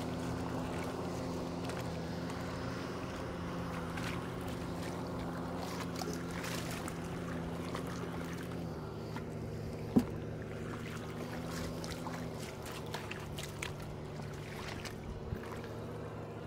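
Tractor engine running steadily, its note dropping slightly a couple of times, with faint squelches and splashes of hands working in wet mud and one sharp click about ten seconds in.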